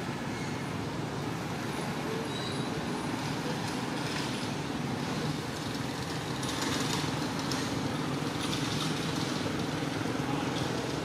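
Steady outdoor background noise: a continuous low rumble with hiss and no distinct event.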